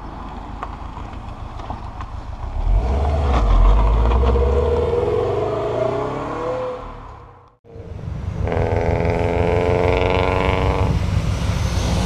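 The turbocharged flat-four of a Subaru WRX sedan accelerating away, its pitch rising as it revs up. After a sudden cut, another car's engine holds a steady note, and a Subaru wagon's engine grows louder as it approaches near the end.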